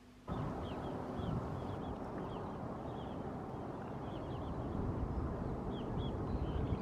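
Small birds chirping in short, quick high calls, repeated many times, over a steady low rushing noise from the shoreline that cuts in just after the start.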